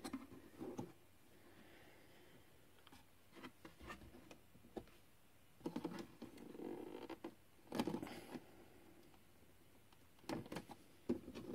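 Soft handling noises from hands gripping and tugging at the plastic top plate of a budget briefcase-style turntable, which stays stuck in its case: a handful of quiet knocks and scrapes between near-silent stretches.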